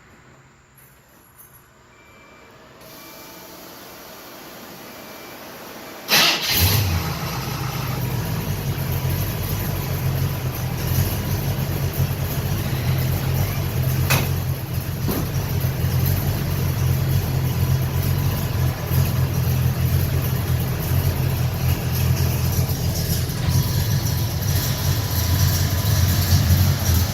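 An engine started for the first time after a teardown and inspection: after a faint hum, it fires with a sudden loud burst about six seconds in and settles into a steady idle.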